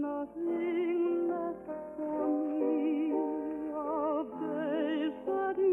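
Orchestral music from a 1950 radio broadcast: several held melody notes with strong vibrato moving slowly from note to note. The sound is narrow and dull, with nothing above the middle treble, as on an old radio transcription.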